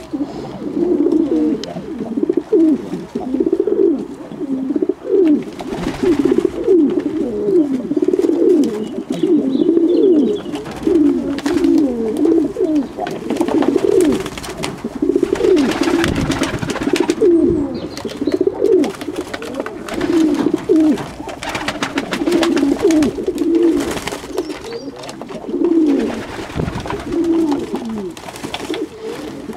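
A flock of fantail doves and pigeons cooing continuously, many low, wavering coos overlapping, with scattered flurries of wing flaps.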